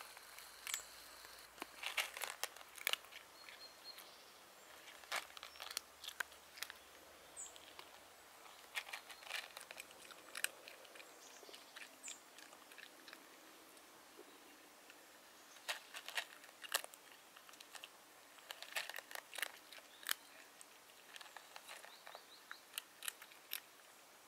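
A cat crunching dry kibble, in short bursts of sharp crunches with pauses between them.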